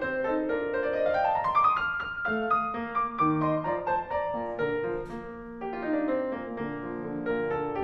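Background piano music: a light melody of short notes, with a quick run of rising notes about a second in.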